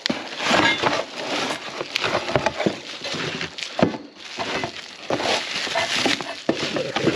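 Handling noise of hardware and packaging: uneven rustling and scraping with scattered knocks and light clinks.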